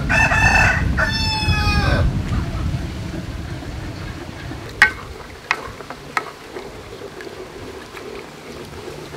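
A rooster crows once, about two seconds long, at the start, its call bending slightly down in pitch. A few sharp knocks follow around the middle.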